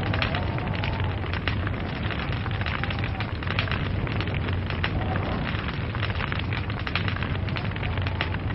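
Log fire burning, with dense, continuous crackling and small pops over a steady low rumble.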